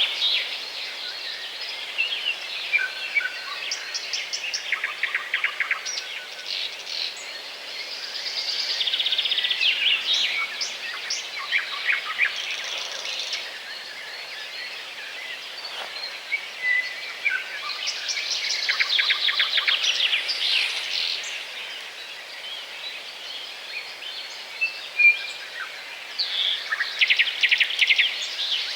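Small songbirds chirping and calling, with many short high calls and several fast trilled call series, over a steady background hiss.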